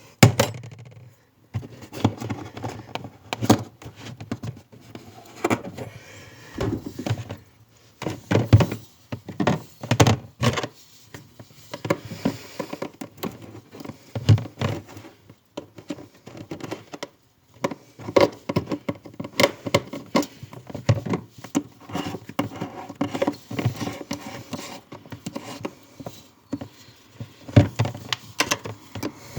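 Irregular knocks, taps and clicks from hands and tools working inside a refrigerator, with a few short pauses.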